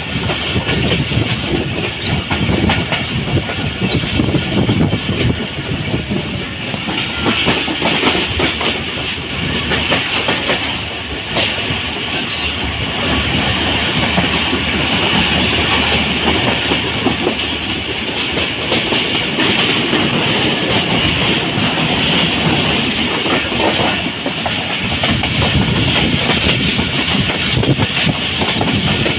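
Passenger train coach running on the line, its wheels clattering over the rails in a steady stream of clicks over a loud rolling rush, heard from an open coach door.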